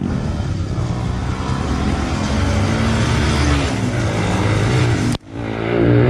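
Motorcycle engine running steadily while riding, the bike fitted with a homemade exhaust silencer made from a cut-down thermos. The sound cuts out abruptly for a moment about five seconds in.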